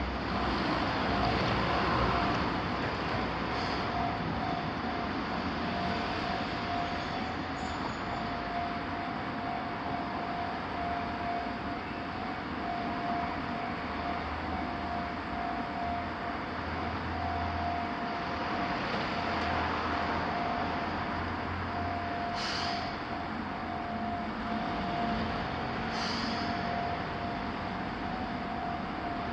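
Japanese level-crossing alarm bell ringing with an even, repeating ding while a Keihan Ishiyama-Sakamoto Line train runs through the crossing, its wheels rumbling over the rails. Two brief high-pitched squeaks come in the second half.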